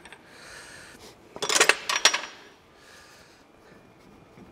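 A quick cluster of sharp clinks and rattles of steel on steel about one and a half to two seconds in, with a brief ring: a wrench being set down against the tractor's metal.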